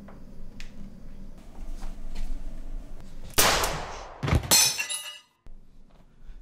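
Film sound effects for a handgun firing: two loud bangs about a second apart, the second with a deep thump and a bright shattering ring, after which the sound cuts off abruptly.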